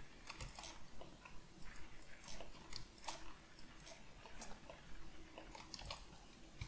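Quiet, irregular clicking of a computer mouse, several light clicks a second or so apart, over a faint steady hum.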